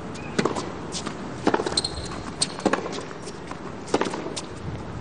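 Tennis rally on a hard court: sharp racket strikes on the ball about every second and a quarter, with ball bounces between them, and a brief high squeak near two seconds in.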